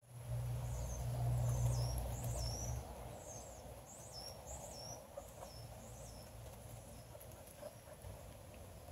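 A songbird calling repeatedly, a string of short, high, downward-slurred notes that fade out about seven seconds in, over a low rumble that is loudest for the first three seconds.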